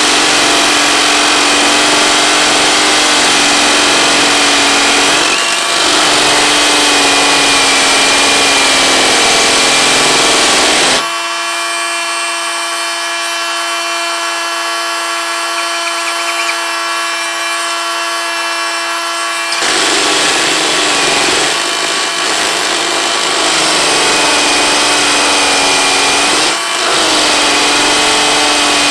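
Ryobi One+ brushless hammer drill running continuously, drilling into a masonry block with a steady gritty whine. From about a third of the way in to about two-thirds it runs free, lifted out of the hole, with a cleaner steady whine, then bites back into the block. There are brief dips as it eases off twice.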